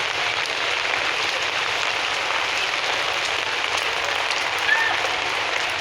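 Steady rain falling, an even noise with no let-up, with a brief faint squeak near the end.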